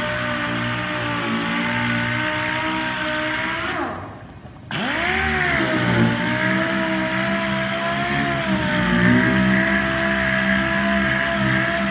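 Pneumatic sander running against a bare steel panel with a steady whine. About four seconds in it is let off and winds down, then it starts again and spins back up.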